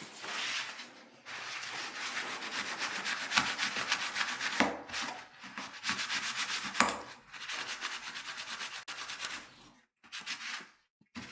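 Rubbing and scrubbing strokes, cleaning old thermal pad residue off a laptop's cooling parts. The scrubbing runs on in spells with short breaks, and a few sharp clicks fall in the middle.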